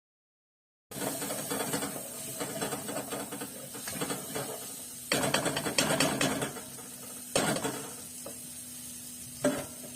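Irregular mechanical clicking and rattling, with louder clusters of clicks about halfway through and near the end, after about a second of silence at the start.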